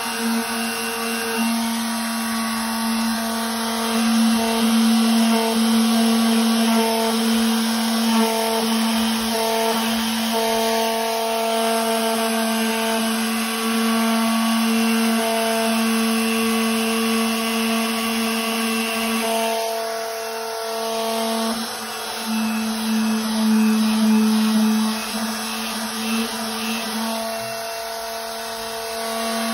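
Small electric detail sander running steadily, its triangular pad sanding the end of a rubber pool table cushion to shape. The motor's hum eases briefly about two-thirds of the way through and again near the end as the sander is lifted off.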